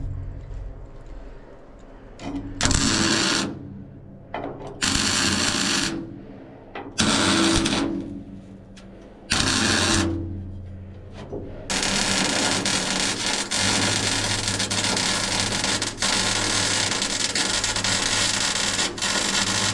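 Electric arc welding: the arc crackles and hisses in four short beads of about a second each, then runs as one long continuous bead of about eight seconds, with a low steady hum from the machine between beads.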